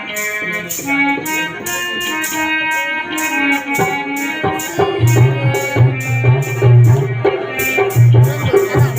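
Stage background music: a sustained melody line over a steady shaking, jingling rhythm, with a heavy low drum beat coming in about five seconds in.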